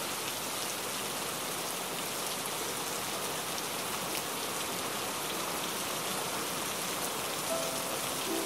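Steady rain falling; a few faint musical notes come in near the end.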